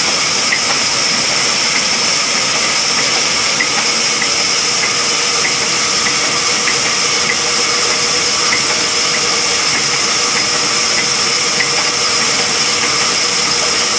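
Belt-driven vertical band saw running and sawing lengthwise through a large log, a steady loud hissing noise of the blade in the wood. A faint tick repeats a little under twice a second.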